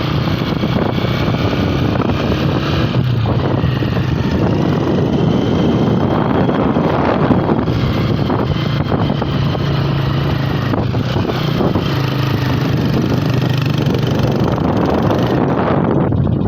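Motorcycle engine running at a steady pace while riding, with a constant rush of road noise.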